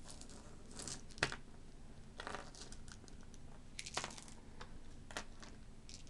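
Light scattered clicks and rustles of a handful of plastic dice being gathered up and handled on a tabletop, with one sharper click a little over a second in.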